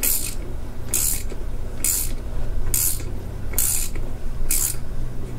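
Hand ratchet wrench clicking in six short strokes, about one a second, running a nut down a coilover shock shaft while an Allen key holds the shaft from spinning.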